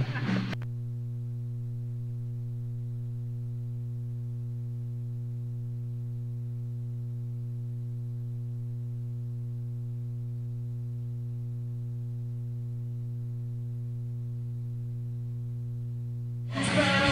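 Steady electrical mains hum, a low buzz with a ladder of evenly spaced overtones and no other sound under it. Loud rock band music cuts in just before the end.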